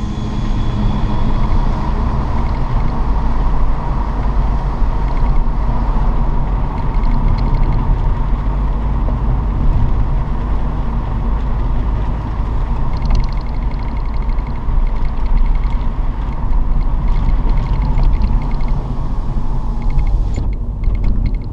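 Car running on the road, heard from inside the cabin: a steady low rumble of engine and road noise.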